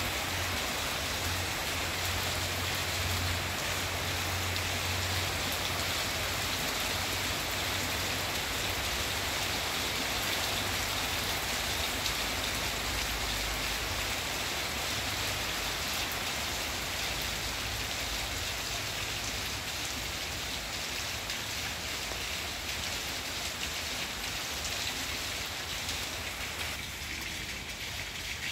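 Steady rain falling on garden leaves, a dense even hiss of drops pattering on foliage.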